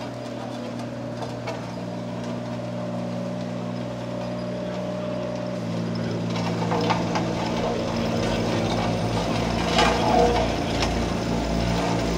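Diesel engine of heavy construction machinery running steadily, then picking up speed and getting louder about halfway through, with a deep throb. Scattered metallic knocks and clanks can be heard over it in the second half.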